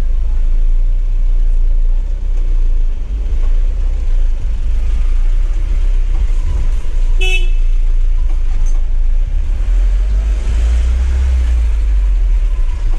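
Low, steady rumble inside the cab of a Mahindra pickup as it drives slowly with its engine warmed up, with one short horn toot about seven seconds in.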